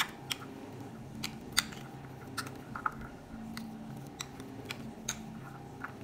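Metal spoon mashing hot steamed potato in a ceramic bowl: irregular clinks and taps of the spoon against the bowl, over a faint steady low hum.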